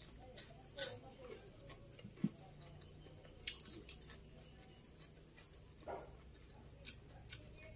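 A person eating by hand: scattered wet mouth clicks and smacks while chewing, with a dull knock on the plate a little after two seconds in.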